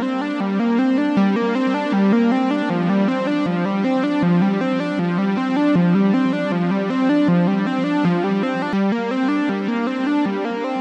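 Background music: an electronic synthesizer tune of quick, evenly stepping notes.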